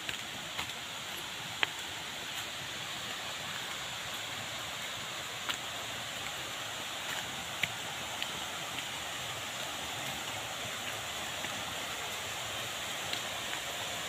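Steady rush of water from a rocky stream, with a few sharp clicks scattered through it.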